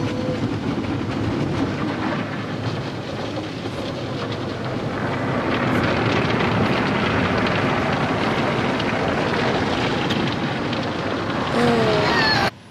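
Steady rumble and rushing noise of a moving vehicle heard from inside, growing louder about five seconds in.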